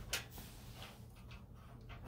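Handling small kitchen sounds: measuring spoons click sharply once just after the start, then a few faint ticks and scrapes follow as sticky peanut butter is worked off a measuring spoon into a ceramic bowl of flour.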